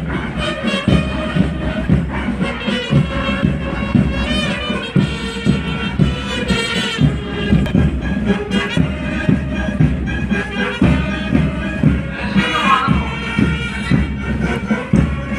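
A band playing a march: wind instruments carry the melody over a steady drum beat.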